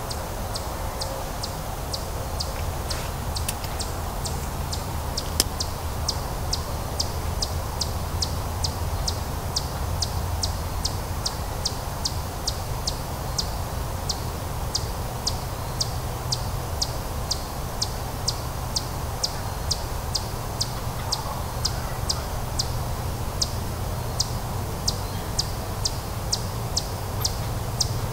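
A steady train of short, high chirps repeating evenly at about two a second, from an animal calling outside the blind, over a low steady rumble.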